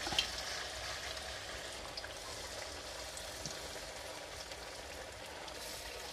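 Corn fritter batter sizzling and crackling in hot oil in an aluminium wok, with a brief knock near the start.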